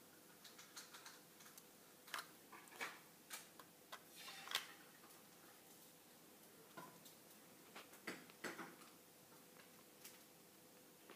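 Faint, scattered clicks and taps of plastic LEGO bricks as a hand-built LEGO rifle is handled, coming in small clusters, the loudest about four and a half seconds in.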